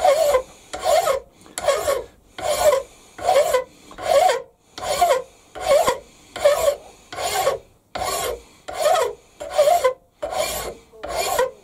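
Long flat hand file rasping across a cast steam-engine cylinder end held in a vise, in steady even strokes of about one and a half a second. The file is dressing off casting flash and passing over a hard spot in the casting.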